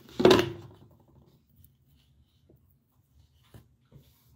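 Phone being handled against its microphone: a loud rustle and bump near the start, then two faint taps.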